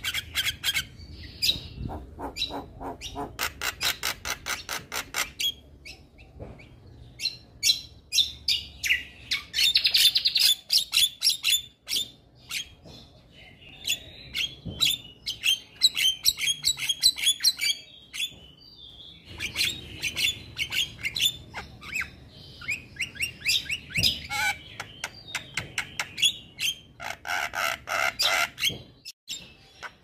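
Male Javan myna (jalak kebo) singing a long, varied song: fast trains of sharp repeated notes and chattering phrases mixed with harsher squawks, broken by a few short pauses.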